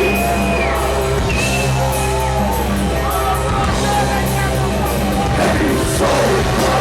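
Live band music on stage: a heavy, steady bass line and drums with cymbals, over which long high melody notes are held and slide between pitches.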